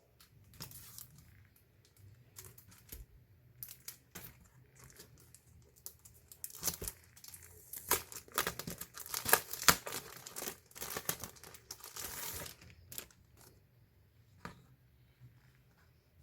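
Packaging being torn open and crinkled by hand: scattered rustles and clicks, then several seconds of dense tearing and crinkling about halfway through, then a few last rustles.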